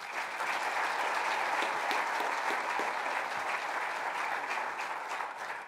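Audience applauding: a steady patter of many hands clapping that starts at once and fades away near the end.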